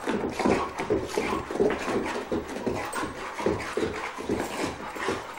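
Boxer dog panting hard in quick, uneven breaths, out of breath after a long run of chasing.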